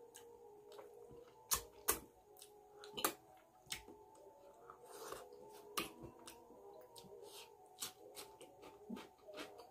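Eating by hand from a steel plate: irregular sharp clicks and smacks from chewing and from fingers working the rice and curry, a few of them louder, the loudest about two and three seconds in.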